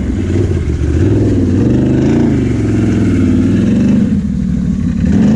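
Can-Am Renegade XMR ATV's V-twin engine revving up and down under throttle while being ridden. Its pitch rises about two seconds in, drops back around four seconds, and climbs again near the end.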